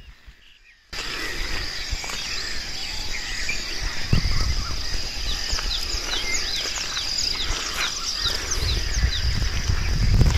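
Birds chirping in the morning, with many short downward-sliding chirps over a steady high-pitched drone, starting about a second in. A low rumble builds near the end.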